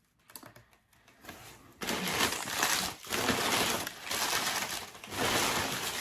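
Packaging being handled and opened for a plant unboxing: a few faint crackles, then from about two seconds in loud, continuous rustling and crinkling that pauses briefly twice.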